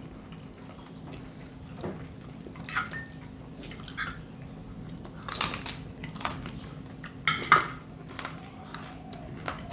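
Eating sounds at a table: a fork and spoon clinking and scraping on a plate, with chewing between. Two louder noises stand out, about five and a half and seven and a half seconds in.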